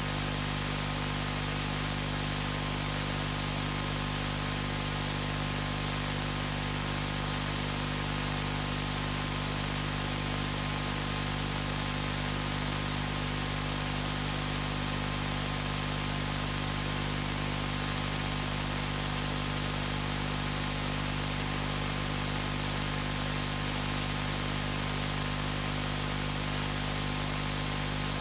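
Steady static hiss with a low, unchanging electrical hum beneath it, and no speech: the recording's own noise floor.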